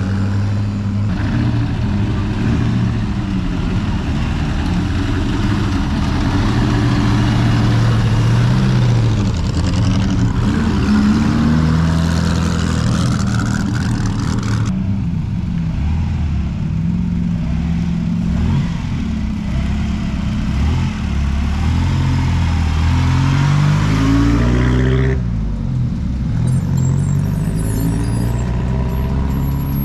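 Engines of vintage Bugatti racing cars running and revving as they pull away, the engine pitch rising and falling repeatedly. The sound changes abruptly about halfway through and again near the end.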